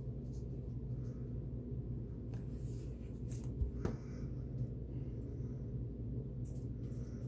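Steady low hum in a small room, with a few faint clicks and rustles around the middle.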